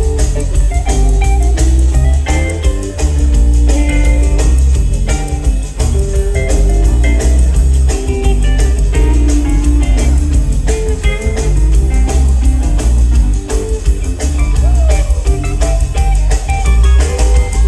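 Rock band playing live and loud: hollow-body electric guitar over bass and a drum kit.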